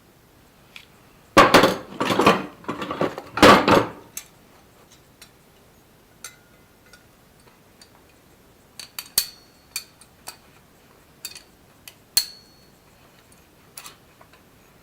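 Metal clanking and scraping as a flat steel bar is worked and bent: a loud run of rough clangs and scrapes a second or so in, then scattered sharp, briefly ringing metal clinks.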